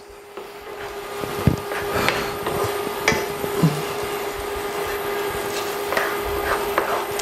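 Spatula stirring red onions and diced red pepper in a frying pan: scraping with a few sharp knocks against the pan, over a steady low hum.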